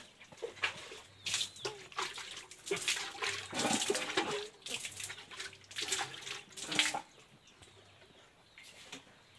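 Water splashing and slopping as a bucket of disinfectant wash is thrown across a wet pigsty floor, in irregular bursts that die down after about seven seconds, with an occasional pig grunt.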